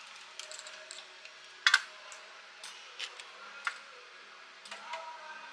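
A knife scraping around the inside of an aluminium foil baking cup to loosen a baked chocolate cake, with the foil crinkling and a few sharp clicks and clinks. The loudest clink comes about a second and a half in.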